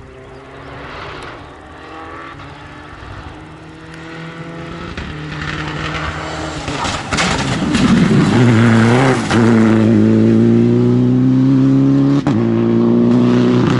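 Citroën DS3 R3 rally car's engine at high revs, growing louder over the first eight seconds as the car comes up the stage, then running loud and hard on the throttle as it passes. The sound breaks off briefly about twelve seconds in, then carries on.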